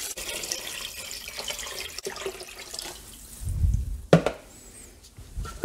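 Water poured in a stream into a stainless steel Instant Pot inner pot full of pork bones, splashing as it fills toward the Max line. The pouring stops about three seconds in, followed by a low rumble and a sharp knock.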